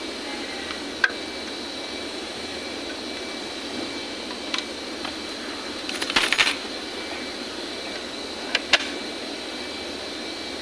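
Small metal tools clinking and clicking as they are handled on a sewing worktable: a few single clicks and a short rattle of several clinks about six seconds in. Underneath runs a steady hum with a faint high whine.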